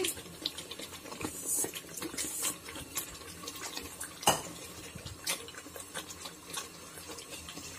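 Wooden spatula stirring thick chicken curry gravy in a pot: wet stirring with scattered light knocks against the pot, the sharpest about four seconds in.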